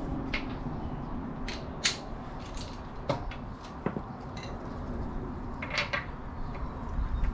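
Scattered sharp metallic clinks and knocks of tools and metal parts being handled, a dozen or so at irregular intervals over a low steady background.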